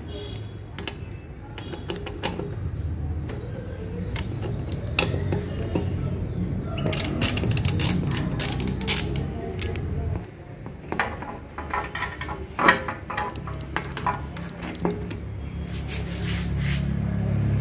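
A metal hand tool clicks and rattles against the bolts of a motorcycle fuel tank's fuel-level sender plate as they are undone to take the sender out. The irregular clicks come thickest in the middle of the stretch, with the loudest one about two-thirds of the way through, over a steady low rumble.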